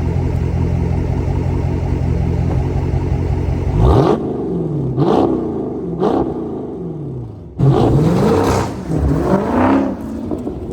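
Dodge Challenger 392 Scat Pack's 6.4-litre HEMI V8 with rear mufflers and resonators deleted (factory catalytic converters and X-pipe kept). It runs steadily for about four seconds, then is revved in about five quick blips, each rising sharply and falling back.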